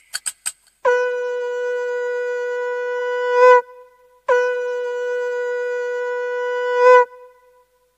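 Casio CT-X700/CT-X870IN electronic keyboard playing a horn-like sound-effect tone: two long held notes on the same pitch, each swelling louder just before it cuts off. A few quick clicks come just before the first note.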